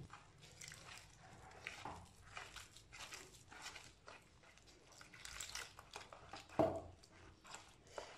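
Hand mixing gram-flour (besan) batter with water in a plastic bowl: faint, irregular squelching and stirring noises as the flour turns into a paste, with one louder sound about six and a half seconds in.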